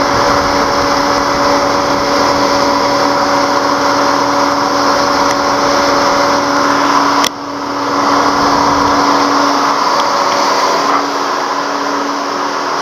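Electric radiator cooling fan of a 2003 Mercedes-Benz C240 stuck on high speed, a very loud, steady whir with a hum, almost like a turbine. The mechanic puts it down to a bad engine control module; a faulty mass airflow sensor can cause the same. There is a sharp click and a brief dip in level about seven seconds in.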